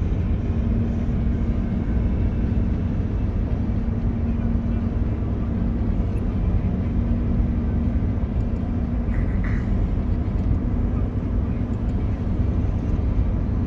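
A vehicle driving: a steady low drone of engine and road noise with a constant hum. A brief higher-pitched sound comes about nine seconds in.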